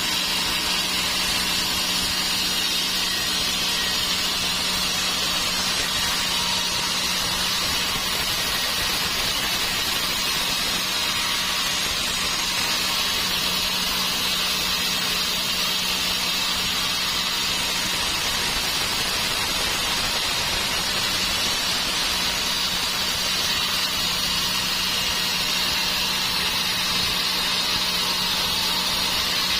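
Sawmill saw running steadily, a constant hiss with a steady low hum beneath it.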